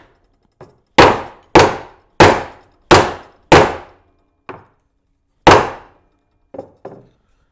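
Plastic-faced mallet tapping metal wire inlay down into routed slots in a walnut board: about six sharp blows spaced roughly half a second apart, then a pause and one more hard blow about five and a half seconds in, with a few lighter taps in between and near the end.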